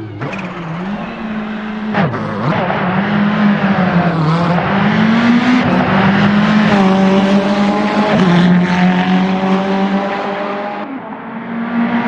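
Ferrari 488 GT3 twin-turbo V8 race engine under hard acceleration. Its pitch climbs and drops sharply with each gearshift, and each shift comes with a short crack. The sound dips briefly near the end as the throttle is lifted.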